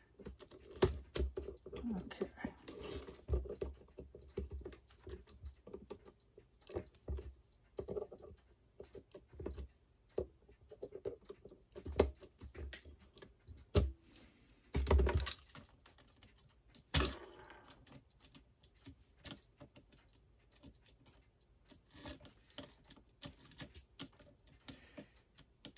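Irregular light clicks, taps and metallic clinks of a screwdriver and small metal parts of a toy steam locomotive being handled as its drive-wheel connecting rods are unscrewed and taken off, with a few louder knocks in the middle.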